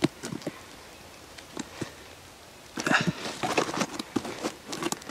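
Hands handling a cord-laced bark tube, with short scrapes, creaks and crackles of the bark. A few come at the start, then a dense run of crackling from about three seconds in.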